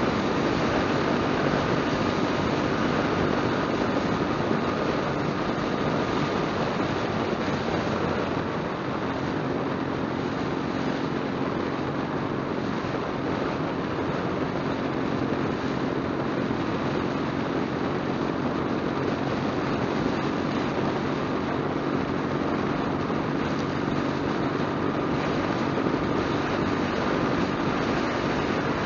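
Motorcycle riding at highway speed: a steady rush of wind and road noise, with a low, steady engine hum underneath.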